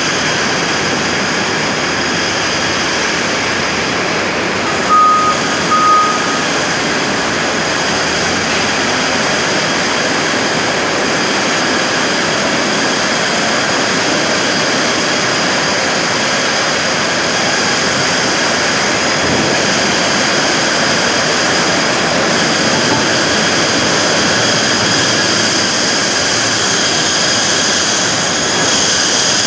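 Steady, loud din of a natural-rubber (SVR10) crumb-rubber processing line: electric motors, conveyors and rolling mills running together, with a constant high whine over the noise. Two short high beeps sound about five and six seconds in.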